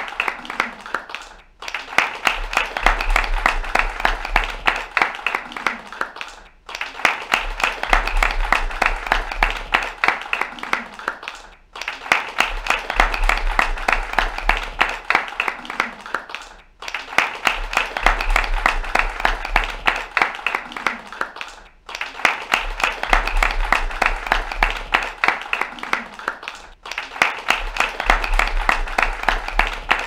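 Light applause from a small theatre audience: a dense patter of hand claps that dips briefly about every five seconds, the same short stretch of applause repeating.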